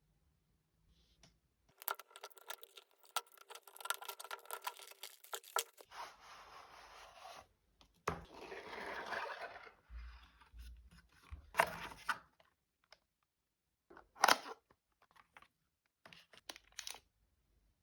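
Packaging being handled and opened: tearing and crinkling, scraping and sliding, with a few light knocks. It comes in short spells separated by quiet gaps.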